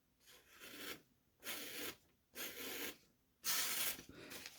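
Freshly sharpened Maxamet knife blade slicing through paper: a dry, hissing swish about five times, roughly once a second.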